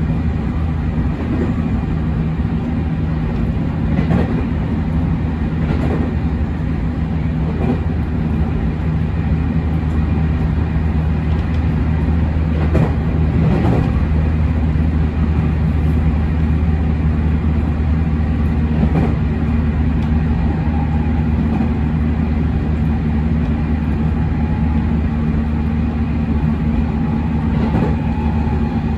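Cabin sound of a JR West 207 series electric commuter train with Mitsubishi IGBT inverters running along the line: a steady low rumble of wheels on rail, with a few irregular clacks over rail joints.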